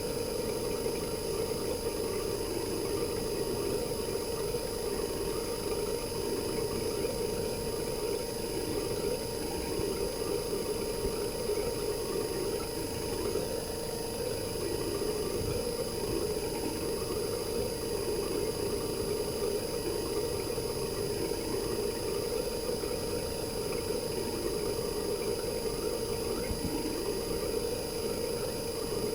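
RECHI 43W26SH single-rotary inverter compressor of a Sharp AU-J25XY air-conditioner outdoor unit running steadily, heard raw from the opened unit. It is a dense, even hum with faint steady high tones above it.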